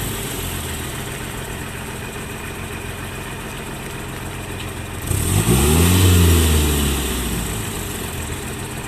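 GAZ-63 off-road truck engine working through deep mud on oversized KrAZ tyres: running steadily at low revs, then revved up about five seconds in, the pitch rising and falling back within about two seconds.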